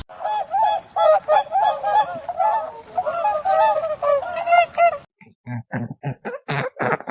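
Waterfowl honking in quick repeated calls, several a second, like a flock of geese. About five seconds in the honking stops and a run of short, separate sounds of another kind follows.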